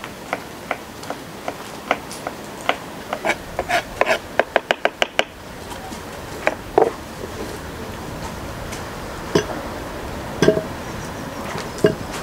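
Kitchen knife chopping fresh herbs on a wooden cutting board: spaced knocks, then a quick even run of about six chops a second, then a few scattered knocks later on.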